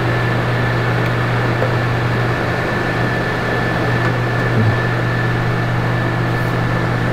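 Coleman rooftop RV air conditioner running with only its fan: a steady hum and whoosh with a faint high whine. The compressor is not kicking on, which the tech takes as a sign of a bad control board or capacitor.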